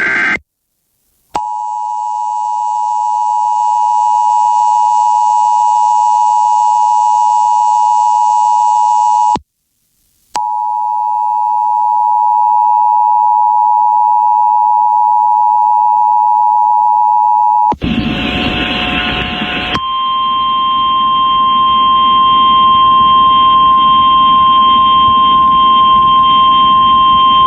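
Emergency Alert System attention signal: a steady two-tone electronic alarm sounding for about eight seconds, cutting off, then sounding again for about seven seconds. After a two-second burst of harsh static it changes to a single steady alert tone, slightly higher, held for about nine seconds.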